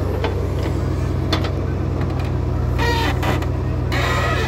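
JCB 3DX backhoe loader's diesel engine running steadily while the backhoe bucket digs into soil. A few short creaks and squeals from the working arm come about three and four seconds in.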